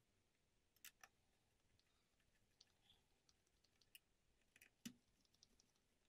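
Near silence with a few faint clicks of a small screwdriver on the laptop's heatsink screws: a pair about a second in and a louder one near the end.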